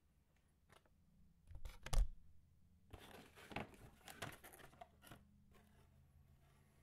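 Cardboard packaging and paper being handled: a sharp knock about two seconds in, then a couple of seconds of rustling and scraping as the cardboard box insert is lifted and the paper user manual is pulled out.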